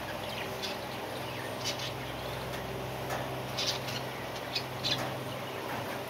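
Budgerigars chirping in scattered short, high calls, several in quick succession around the middle, over a steady low hum.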